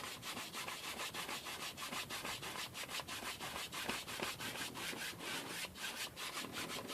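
Paintbrush scrubbing paint onto a stretched canvas in quick, repeated strokes, several a second, each a short scratchy rub.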